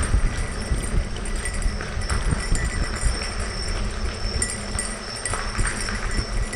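Bicycle rolling over a gravel trail surface: a continuous low rumble with irregular knocks and rattles.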